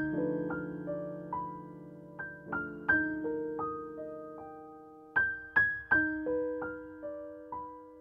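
Background piano music: a slow, gentle melody of single struck notes and short runs, each note ringing and fading.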